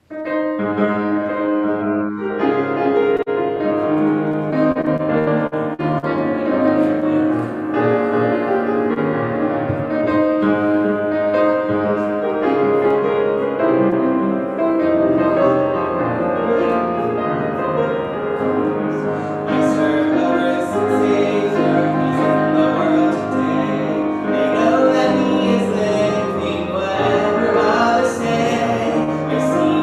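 Piano music played by a single keyboardist, a slow piece of sustained chords and melody lines.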